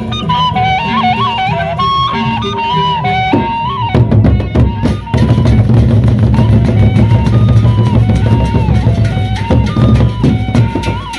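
Sasak gendang beleq ensemble: a wind instrument plays a melody of held, stepping notes. About four seconds in, the large gendang beleq barrel drums come in with loud, fast beating and crisp high strikes, while the melody carries on above them.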